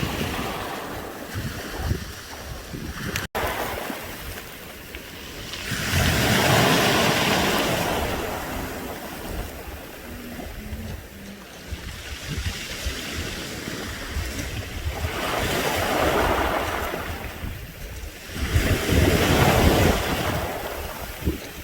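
Sea waves washing over a beach of smooth round pebbles, the surf running up and drawing back through the stones with a rattling wash. Three larger surges come in, a quarter of the way in, past the halfway mark and near the end.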